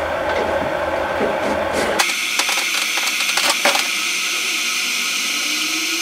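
Electric moka-style geyser coffee maker brewing, coffee pushed up through the central spout with a steady hiss and bubbling. About two seconds in the sound jumps sharply higher and quicker, full of fast crackles, as the footage is sped up fourfold.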